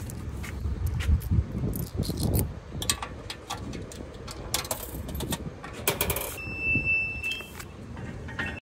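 Coins clinking into the coin box of a metal pay-toilet turnstile, then the turnstile's mechanism clicking and rattling as it turns. A high steady tone lasts about a second, some six seconds in.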